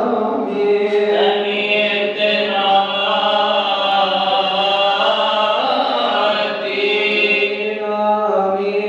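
Coptic Orthodox liturgical chant: a man's voice sings long, melismatic phrases into a microphone over a steady low drone.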